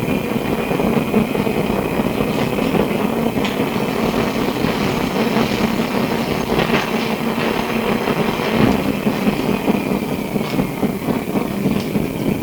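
Interior sound of Melbourne SW5 class tram no. 815: a steady mechanical running noise with a low hum and a high whine, the whine dipping slightly in pitch near the end.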